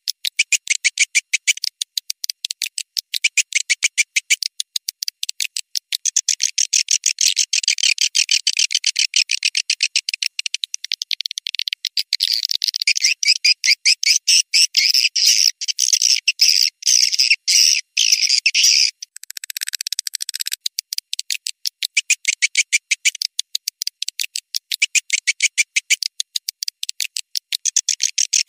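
Swiftlet call recording (suara panggil walet) of edible-nest swiftlets twittering: rapid high-pitched chirps many to the second, with a couple of short breaks. It is the kind of call track played from speakers at a swiftlet house to lure swiftlets in to roost and nest.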